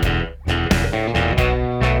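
Background music: plucked electric guitar over a bass guitar, playing a steady rhythmic groove.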